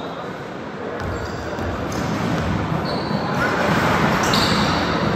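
Basketball game in a gym: sneakers squeaking sharply on the court and the ball bouncing, over the chatter of players and crowd.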